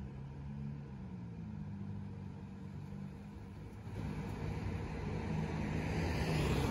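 Fire engine's diesel engine idling with a steady low rumble, growing louder from about four seconds in.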